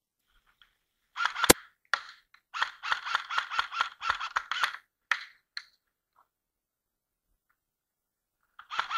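Airsoft rifle firing a quick string of shots, about four or five a second, with a single sharp crack just before it, and a few more scattered shots after it.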